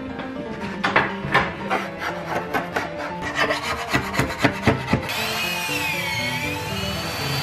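A hand scraper dragged in quick repeated strokes along the edge of the countertop's sink cutout, scraping it clean. About five seconds in it gives way to an electric drill boring into the wooden cabinet floor, its motor whine rising and falling in pitch.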